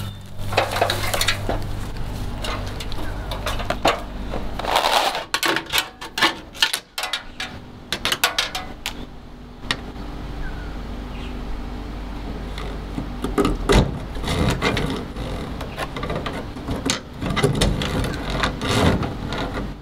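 Fish tape being unwound from its plastic reel and pushed up through a small drilled hole in a soffit: an irregular run of clicks, rattles and scraping, busiest in the middle and again near the end.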